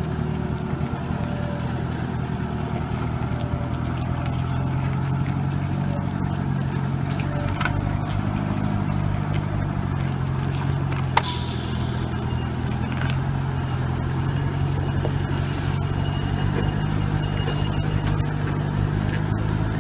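Heavy truck engine running steadily at low speed under load, with one sharp click about eleven seconds in.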